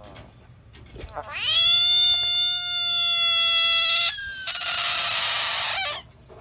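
A large frog's screaming distress call, made with its mouth held open: a long, steady, cat-like wail of about three seconds starting about a second in, then a shorter hissing, breathy cry that stops near the end.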